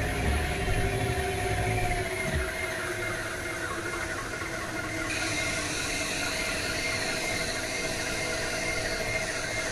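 Noise-music drone: a dense, steady wash of hiss and hum with a few held tones. A low rumble cuts out about two and a half seconds in, and a brighter hiss comes in about five seconds in.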